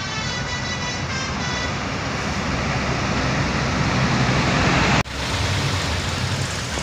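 Bus engine and road noise of a convoy passing, growing louder over a few seconds. It cuts off abruptly about five seconds in, then engine running resumes.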